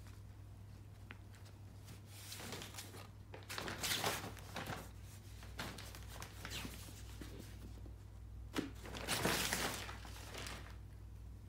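Fabric of a photo softbox rustling and crinkling as kittens climb and scrabble on it, in irregular bursts, loudest about four seconds in and again about nine seconds in.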